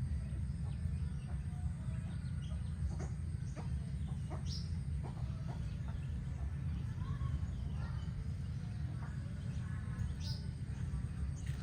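Chickens clucking and calling now and then over a steady low rumble.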